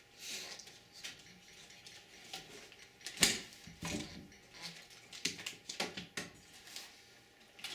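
Irregular clicks and rustles of cables and parts being handled inside a desktop computer case as the cables are tucked into place. The loudest is a sharp click about three seconds in.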